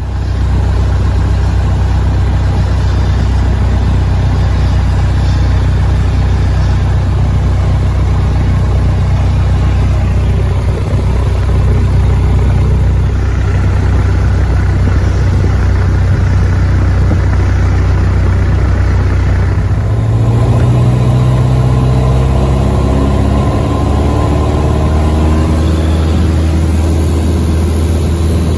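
Light aircraft's engine and propeller, a loud steady drone heard from inside the cabin. About twenty seconds in, the pitch climbs as power comes up for the takeoff roll.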